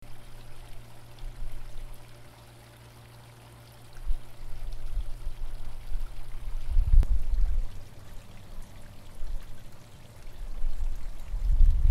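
Wind buffeting the microphone: an uneven, gusty low rumble that drops away briefly, then comes back stronger about four seconds in and again near the end, over a faint steady low hum. A single sharp click comes just past the halfway point.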